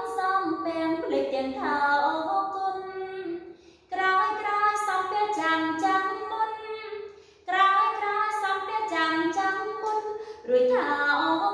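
A woman singing a Khmer song solo, without accompaniment, in long held phrases. She breaks off briefly twice, about four seconds and about seven and a half seconds in.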